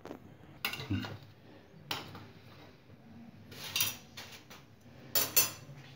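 A metal utensil clinking and knocking against a tawa (flat griddle) as stuffed potato litti are turned and roasted on it: several short, separate clinks scattered across a few seconds, with a louder pair near the end.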